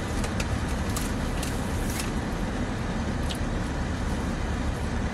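Steady low rumble of a car idling, heard from inside the cabin, with a few faint short clicks from eating.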